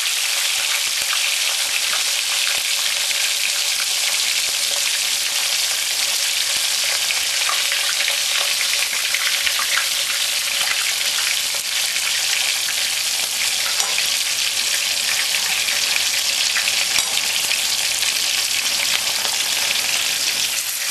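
Whole snapper frying in very hot oil in a pot: a steady sizzle with a few sharper pops now and then.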